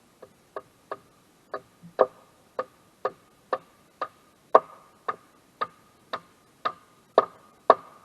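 Regular ticking, about two sharp ticks a second, each with a short ring, growing louder toward the end.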